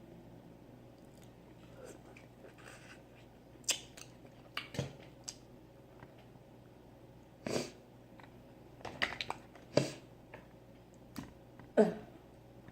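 Eating snow crab close to the microphone: hard crab shell cracking and snapping by hand, with chewing and mouth smacking. About a dozen short, sharp snaps come at irregular intervals, the loudest near the end.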